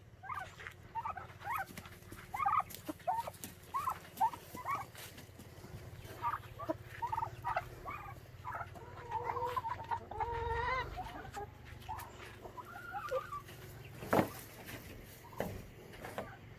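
Chickens and turkeys calling: a run of short clucks throughout, with a longer wavering call about ten seconds in. A single sharp knock sounds about fourteen seconds in.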